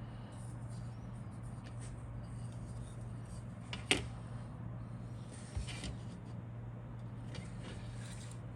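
Steady low electrical hum with a sharp click about four seconds in and a softer knock about a second and a half later, amid faint light handling rustles.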